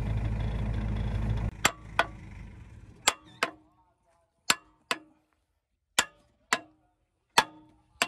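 Hammer striking the steel bucket pin of a JCB 3DX backhoe's bucket linkage: about nine sharp metal clangs, mostly in pairs, each ringing briefly. A steady engine drone stops about a second and a half in.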